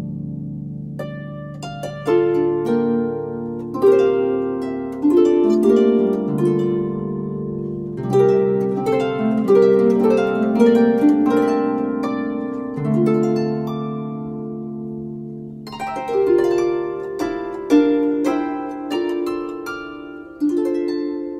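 Solo harp music: plucked notes and chords that start sharply and ring on as they fade, with one chord left ringing for a few seconds past the middle.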